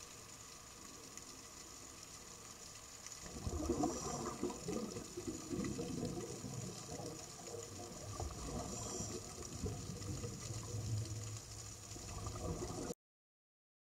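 Underwater water noise picked up by a diver's camera. A faint hiss turns into a louder, uneven rush about three seconds in, then cuts off suddenly near the end.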